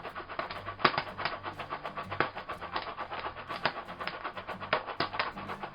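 Jiffy Pop kernels popping inside the foil pan, sharp irregular pops several times a second over a steady sizzle and rattle as the pan is heated and shaken.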